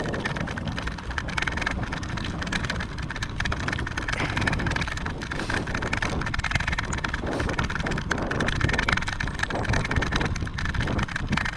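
Steady wind rush over the microphone mixed with the road noise of a moving vehicle, rough and unbroken.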